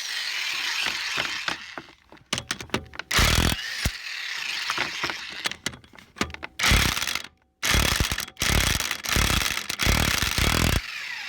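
Mastercraft 7.5A corded electric 1/2-inch impact wrench hammering in reverse in several bursts with short pauses, loosening wheel lug nuts.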